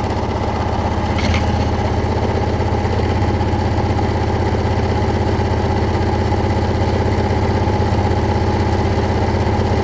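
Electric sewing machine running steadily at full speed with no thread installed, just after oiling, working the fresh oil through its moving parts.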